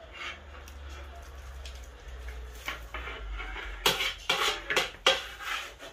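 A plate scraping and clattering in a wok as fried chicken is scooped out and tipped into a big pot of haleem, with four or five sharp knocks in the second half.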